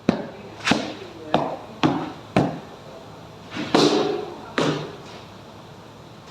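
A series of sharp knocks and clangs, about one every half second at first, then a louder hit with a ringing tone a little under four seconds in and one more hit soon after.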